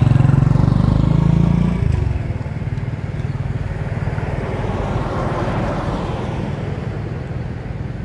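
Motor vehicle engine running close by, its low drone dropping away about two seconds in, then steady road-traffic noise that swells and fades again midway as another vehicle passes.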